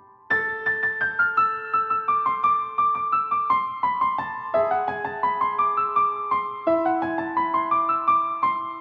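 Background music: a piano playing a quick run of repeated notes over slower held bass notes, with no singing.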